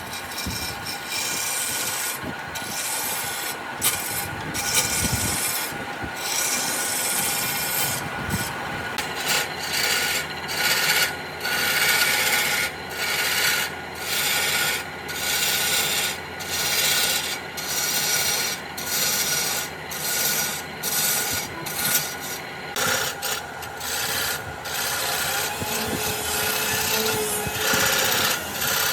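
Wood being abraded by hand in back-and-forth strokes, a scratchy rasping sound. The strokes are uneven at first and settle into a steady rhythm of a little more than one stroke a second after about eight seconds.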